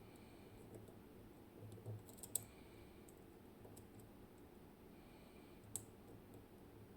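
Faint metallic clicking of a lock pick working the tapered pins inside a Zikon RW6 dimple lock under tension, with two sharper clicks about two and a half and six seconds in.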